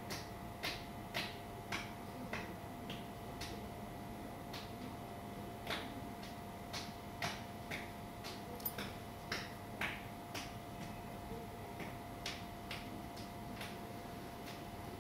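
Sharp, separate clicks at uneven intervals, roughly one or two a second, over a faint steady electrical hum.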